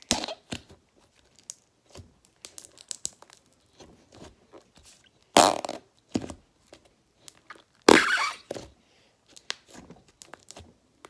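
Slime being squeezed and stretched by hand, crackling and clicking as air pockets pop, with two louder fart-like squelches of air forced out, about five and a half and eight seconds in.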